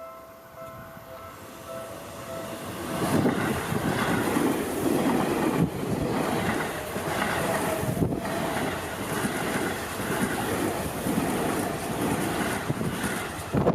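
Level-crossing warning bell ringing in an even repeating pattern, then a Seibu Ikebukuro Line train passes close by from about three seconds in. The rush of the cars and the clack of the wheels drown the bell.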